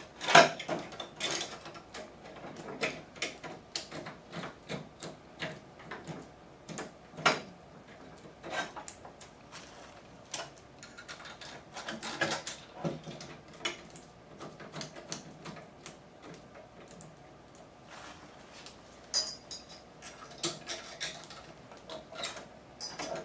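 Irregular metallic clicks, clinks and knocks of a thermal copier's reflector and lamp assembly being handled and seated back into the machine's metal frame, its locking pins going into the frame rails.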